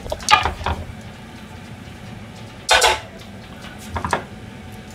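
Metal cookware being handled on a stainless-steel kitchen counter: a few clinks in the first second, one brief louder clatter a little under three seconds in, and a couple of light knocks near the end, over a low steady hum.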